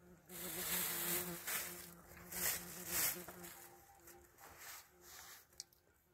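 A fly buzzing steadily close by, its pitch wavering slightly. Several loud rustling noises come over it in the first half.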